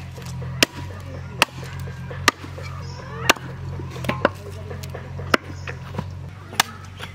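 Heavy meat cleaver chopping raw goat meat on a wooden log chopping block. There are about eight sharp chops, roughly one a second and irregularly spaced, over a steady low hum.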